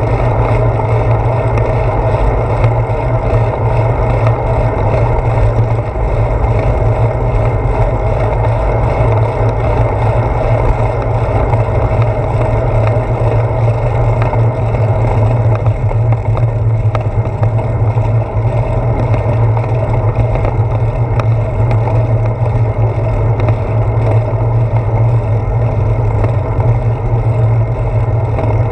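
Steady wind rush and road rumble picked up by a handlebar-mounted GoPro Hero 4 on a moving bicycle, its tyres rolling on an asphalt path; a loud, even low rumble that never lets up.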